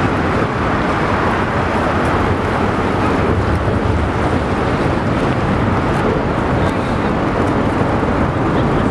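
Steady, loud rushing of wind buffeting the phone's microphone, with no distinct pitched sound.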